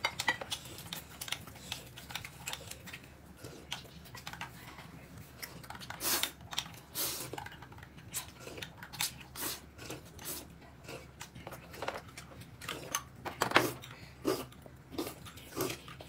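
Eating at a table: irregular clicks and clinks of utensils against dishes, with chewing.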